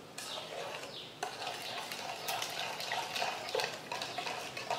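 Steel spoon stirring a wet mix of powdered sugar, ghee and water in a bowl: repeated scraping swishes with light clicks of the spoon against the bowl.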